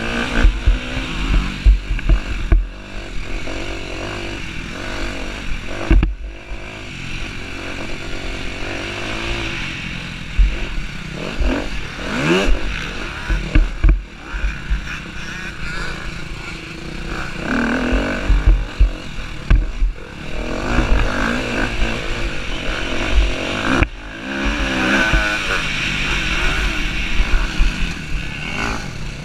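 Husqvarna TC250R motocross bike engine revving up and dropping back as it is ridden hard around a dirt track, the pitch rising with each burst of throttle. Frequent low thumps and wind buffeting are heard on the mounted camera's microphone.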